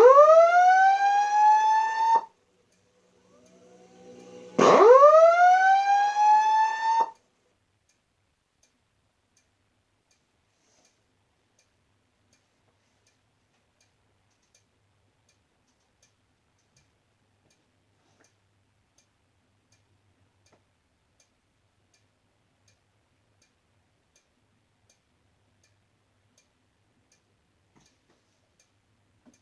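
Fire alarm evacuation speaker sounding two rising whoop tones, each sweeping upward in pitch for about two seconds. After about seven seconds it stops, leaving only faint regular ticking.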